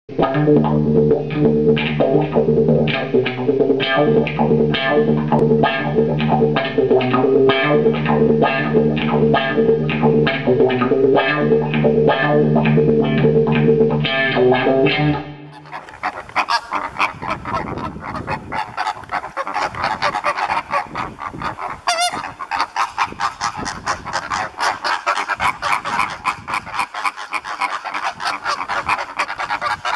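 Plucked-string instrumental music for about the first fifteen seconds. It then cuts off sharply, and a large flock of flamingos takes over, honking and chattering constantly, many short calls overlapping.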